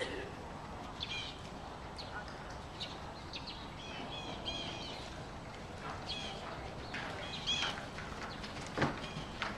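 Small birds chirping, short calls a few times a second. Near the end come a horse's hoofbeats as it canters past on the arena footing.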